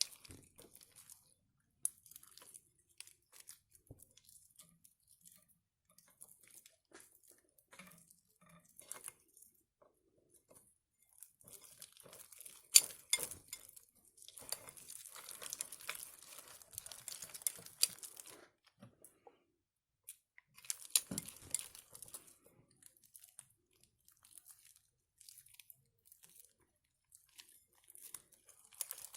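Pink slime being worked by hand, with irregular crackling and crinkling that comes and goes. The crackling is busiest in two longer stretches in the middle, and a sharp click comes a little before the first.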